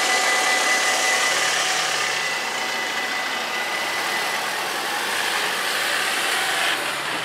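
Level-crossing warning bells ringing as a steady tone while the barriers rise, fading out about four seconds in. Under and after them, a Ford Transit van's engine and tyres as it drives over the crossing close by.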